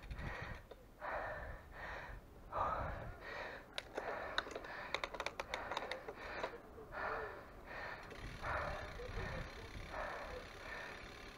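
A cyclist's heavy, rapid breathing, puffing hard in a steady rhythm of about one breath a second under the effort of a steep climb. A quick run of sharp clicks comes in the middle.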